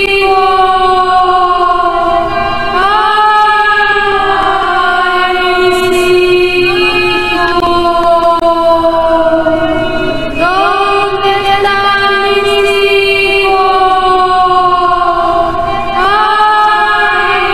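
Background music of wordless choir-like voices holding long notes that slowly drift down in pitch, with new notes sliding in a few times.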